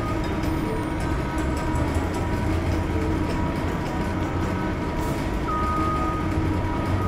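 Steady drone of a heavy machine's engine, a sound effect laid over the toy construction vehicle working, with a steady whine over the low rumble and a higher whine coming in near the end. A few light knocks as rocks are set down.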